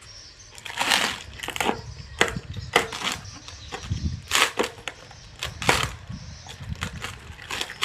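Tool packaging being handled and opened: irregular crinkling and crackling of plastic and cardboard, several sharp rustles a second.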